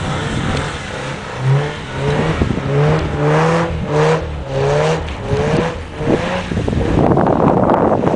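Subaru car engine revving in quick repeated surges during a drift, its pitch rising with each one, roughly every half second. Near the end the engine note gives way to a loud, even rushing noise.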